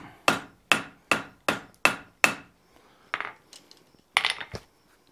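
Hand hammer striking a hot steel bar over the edge of an anvil to bend it to 90 degrees. Six even, ringing blows come about two and a half a second, then a few lighter, irregular taps.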